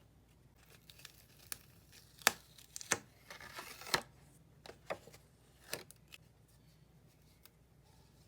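Packaging being torn open and crinkled by hand, with a tearing rustle in the middle and a handful of sharp snaps and clicks.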